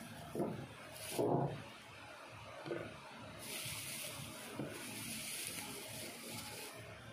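A plastic spoon scooping into a boiled balut egg, with a few soft knocks, the loudest about a second in. From about three and a half seconds in, a steady hiss lasts about three seconds.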